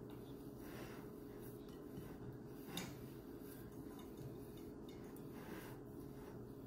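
Faint soft rubbing and squeezing of hands working crumbly shortcrust pastry dough in a glass bowl, over a steady low hum, with one light click a little under three seconds in.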